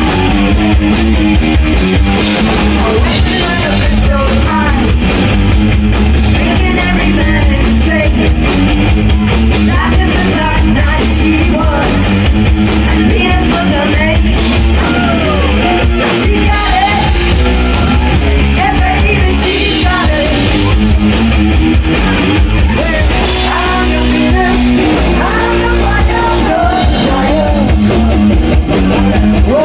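Live rock band playing a cover song, with electric guitar and a singer over a heavy, steady bass and drum beat, loud and full.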